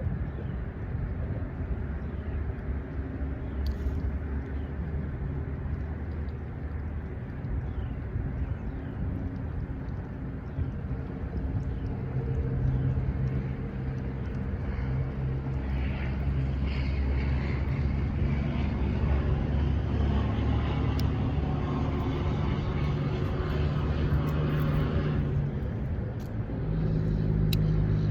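Low engine rumble with a steady hum, growing louder about halfway through, dipping briefly near the end and then coming back.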